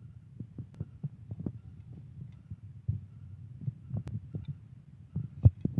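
Sliced onion being dropped by hand into a stainless steel bowl of chopped coriander leaves: soft, irregular thuds and light taps, with the loudest pair near the end.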